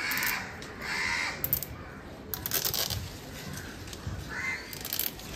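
A cable tie being drawn through its ratchet lock around a graft union, in short runs of quick clicks. A bird calls three times: twice near the start and once near the end.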